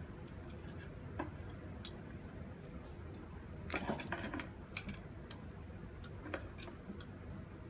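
Scattered light clicks and crackles of stiff old cable and its hardened plastic insulation being handled and worked, with a short burst of crackling about four seconds in.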